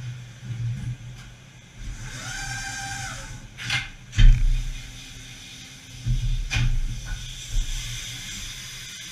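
5-axis CNC machining center running with a steady low hum, a brief whine about two seconds in, two short sharp hisses and heavy low thuds of moving machine parts, once about four seconds in and again about six seconds in.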